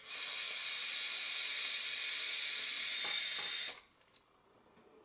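A long direct-lung draw on a FreeMax Starre Pro sub-ohm tank: a steady hiss of air rushing through the tank's airflow and over the firing coil. It lasts about three and a half seconds and stops abruptly.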